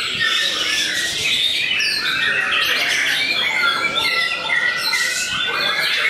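White-rumped shamas singing in a dense, overlapping chorus of whistles, chirps and harsh notes, with a longer held whistle about halfway through.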